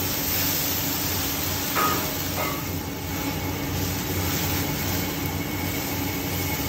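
A gas wok burner running, with food sizzling and hissing in the hot wok. There are two short metallic clinks of the ladle against the wok about two seconds in.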